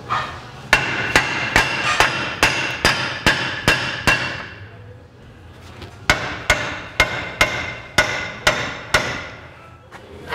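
Hammer blows on a 2003 Acura MDX's lower control arm, driving it out of its tight rubber-bushed mounts. There are two runs of about eight quick ringing metal strikes, two or three a second, with a pause of about two seconds between them.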